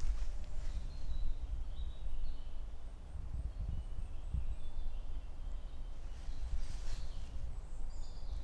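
Small woodland birds singing, short high whistled notes scattered through, over a steady low rumble. A couple of footsteps on the forest path come about six to seven seconds in.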